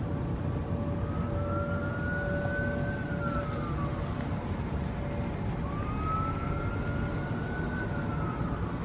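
Outdoor warning siren sounding a slow wail, its pitch rising and falling twice, over a steady low rumble of outdoor background noise. A steadier lower tone runs alongside it for the first half.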